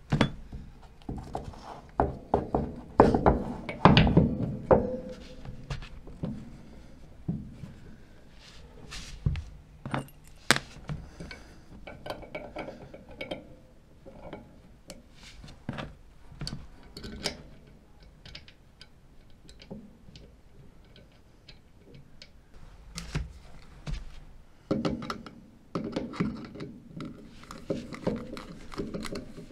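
Metal gas-pipe fittings being handled and screwed together: a string of clinks, knocks and thunks, busiest in the first few seconds. Near the end comes a cluster of scraping clicks as a screwdriver turns at the pipe's wall clamp.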